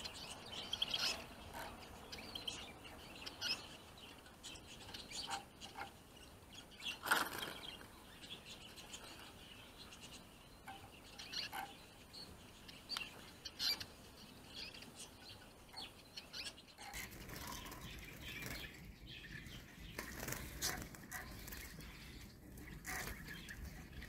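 Small songbirds chirping and fluttering around a cage with wooden trap boxes. Short high chirps come throughout, with scattered sharp clicks and taps, the loudest about seven seconds in. A low rumbling noise joins about two-thirds of the way through.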